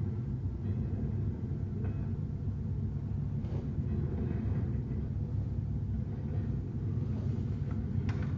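A steady low rumble in the room, with a few faint clicks of plastic CD cases being handled and a quick run of sharper clicks near the end.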